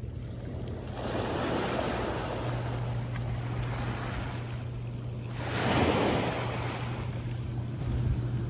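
Small waves washing in over a beach of round mongdol pebbles and drawing back, the surf swelling and ebbing three times with the loudest wave about six seconds in; pebbles roll and rattle in the wash. A steady low hum runs underneath.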